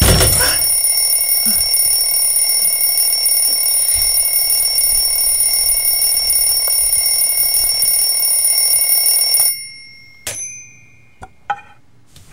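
Alarm clock ringing loudly and without a break, cutting off abruptly after about nine and a half seconds; a few short clicks and knocks follow.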